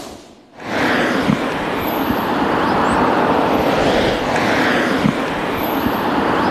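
A whoosh fades out at the start, then steady road traffic noise begins. It swells every couple of seconds as cars pass.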